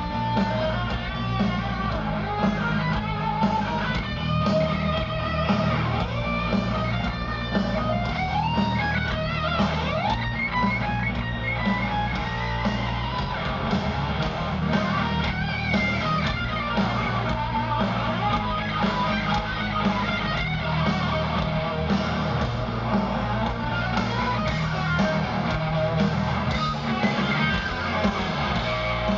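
Heavy metal band playing live: an electric guitar solo with bending notes over drums and bass guitar, heard from the crowd.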